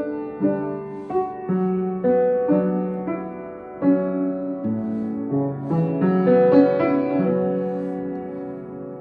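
Solo piano playing a slow, gentle piece, each note or chord struck and left to ring and decay, the playing thinning and fading out near the end.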